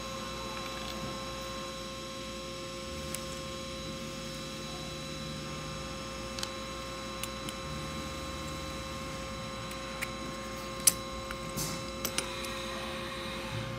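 Steady electrical hum, with a few light clicks and taps as small parts are handled; the sharpest click comes about eleven seconds in.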